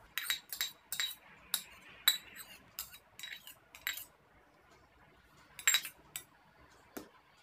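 Metal spoon clinking against a small stainless-steel cup while the last of the chopped carrot is scraped out. The sharp clinks come about two or three a second for the first four seconds, then a few more near the end.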